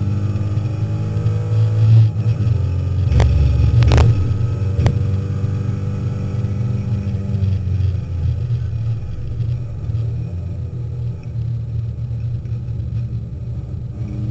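Alpine A310 race car's engine heard from inside the cockpit, running hard on track, with three sharp knocks between about three and five seconds in. The engine note eases a little in the second half.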